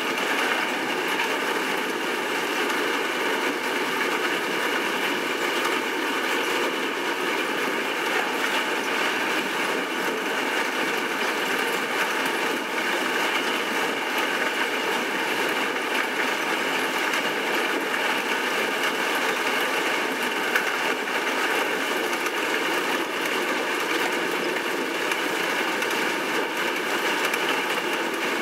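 Steady running noise inside a moving bus: engine and road drone with rattling from the window frames and fittings, and several steady high tones over it.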